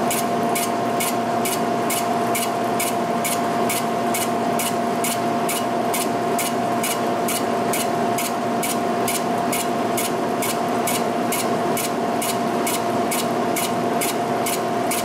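G&L horizontal boring mill spindle turning a boring bar as it back-faces the vertical edge of a shaper's way. A steady machine whine runs with a sharp tick about three times a second from the cut, and the sound cuts off suddenly at the end.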